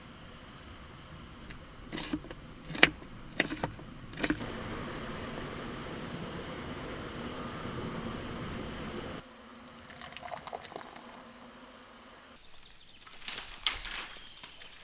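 Insects trilling in one steady high-pitched note, with a few sharp clicks and knocks a couple of seconds in and again near the end. A louder steady hiss joins for about five seconds in the middle and cuts off suddenly.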